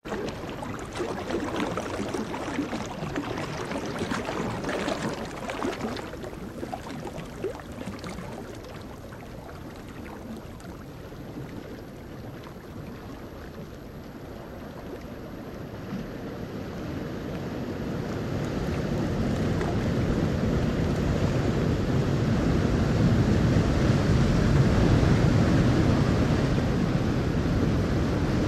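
Ambient sea sound of waves washing on a shore, with wind: a steady rushing noise that eases around the middle and swells louder and deeper in the second half.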